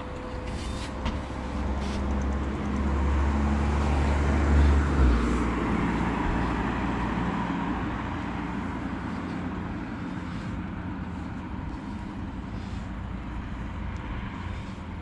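A car passes close by on the road, its engine and tyre noise building to a peak about four to five seconds in and then fading away into general traffic noise.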